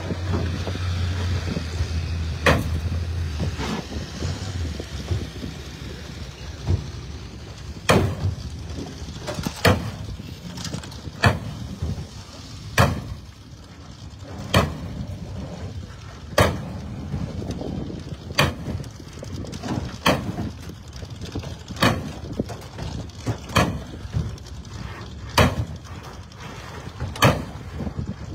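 Sledgehammer blows on the crumpled rear sheet metal of a demolition derby car, beating out crash damage: sharp, heavy metal strikes at an even pace of about one every two seconds, over a dozen in all. A low steady hum sits under the first few seconds.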